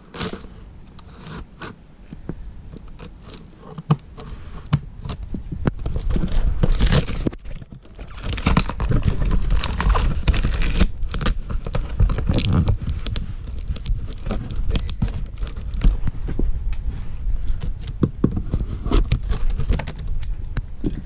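A cardboard shipping box being opened by hand: packing tape tearing, with cardboard and packing material scraping, rustling and crumpling. The handling gets louder and busier from about six seconds in.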